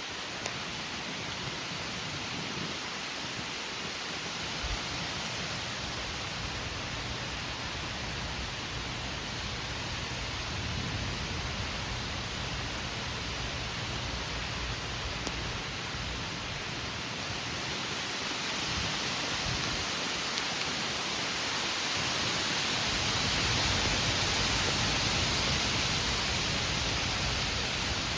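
Heavy rain and gusty straight-line storm winds making a steady rushing noise. A gust swells it louder about twenty-two seconds in.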